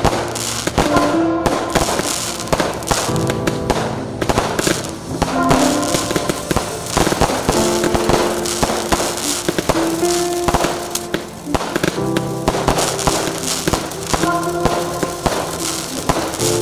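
Fireworks going off in quick succession, many sharp bangs and crackles, mixed with background music of held chords.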